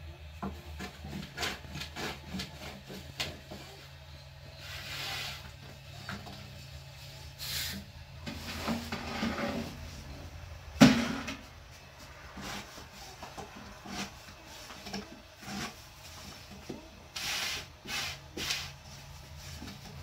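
Thin wooden rolling pin rolling out flatbread dough on a wooden board: repeated rubbing strokes and light wooden taps and clicks, with one sharp knock about eleven seconds in.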